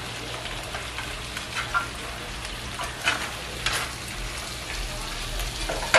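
Diced potatoes sizzling in a hot cast-iron skillet, with a few scrapes and clinks of a utensil against the pan as they are scooped out.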